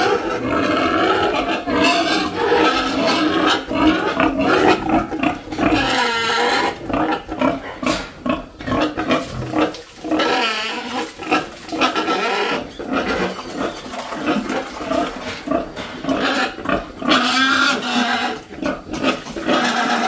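Pigs squealing at feeding time, loud and nearly continuous, rising and falling in pitch with short breaks.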